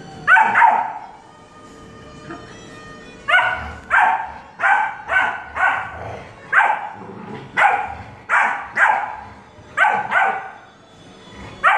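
Dalmatian barking: a pair of sharp barks, a pause of about two and a half seconds, then a run of a dozen barks at about two a second.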